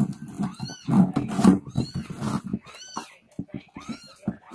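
Kittens mewing: repeated short, high cries that rise and fall in pitch, with lower scuffling noises underneath.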